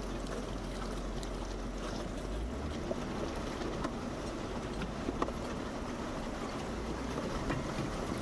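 Jeep Wrangler driving through a creek: steady low engine rumble mixed with rushing, splashing water, with a few faint knocks.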